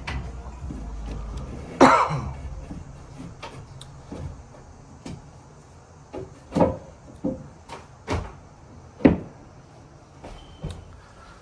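A series of separate knocks and thumps, like wood or doors being bumped and handled, the loudest about two seconds in. A low rumble runs under the first couple of seconds.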